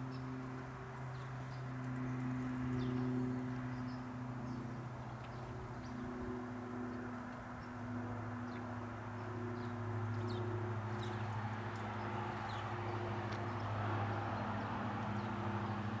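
A steady low mechanical hum, the loudest sound, dropping slightly in pitch about halfway, over a general background rumble. Faint short chirps of small garden birds come scattered throughout.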